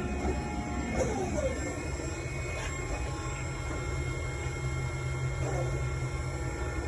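Dark, droning background music over a steady low rumble, with two brief falling squeals, about a second in and again near the end.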